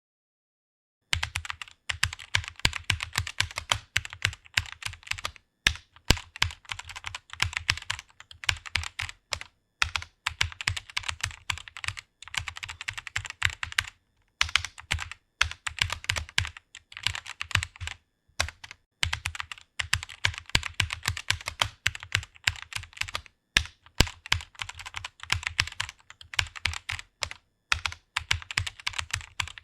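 A computer keyboard being typed on fast: a rapid, continuous run of key clicks starting about a second in, broken by short pauses every few seconds.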